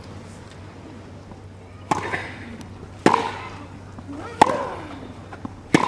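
A tennis rally: a ball struck back and forth by rackets, four sharp hits about 1.3 seconds apart, the first about two seconds in. Each hit is followed by a short vocal exhalation from the player.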